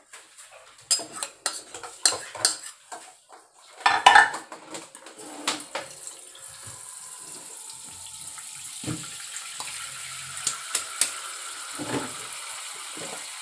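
A metal ladle and spoon clinking and scraping against a stainless steel mixing bowl as flour is added and vegetable fritter batter is stirred, the sharpest knocks about four seconds in. From about six seconds on a steady hiss runs underneath, with a few more clinks.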